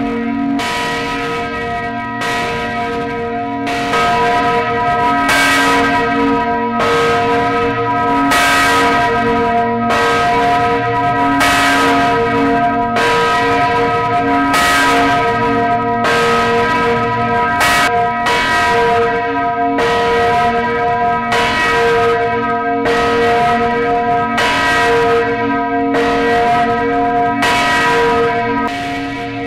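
Several large swinging church bells in a tower ringing together for a funeral, heard close up inside the belfry: clapper strikes about once a second, each leaving a long hum that runs on under the next. The ringing gets louder about four seconds in.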